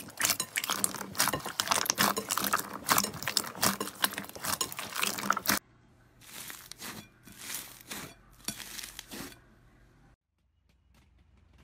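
Hands kneading and squeezing a large glossy slime, making dense wet squelching and popping clicks. About five and a half seconds in this cuts to quieter, sparser crackles of foam-bead slime (floam) being pressed, fading to near silence near the end.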